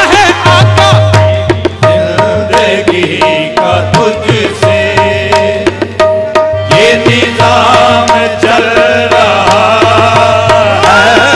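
Qawwali music: tabla drumming under a harmonium-led melody that sounds a held note again and again in a steady rhythmic cycle.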